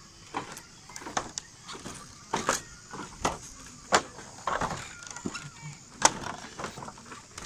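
Footsteps on a bamboo footbridge: an irregular series of knocks from the bamboo slats under each step.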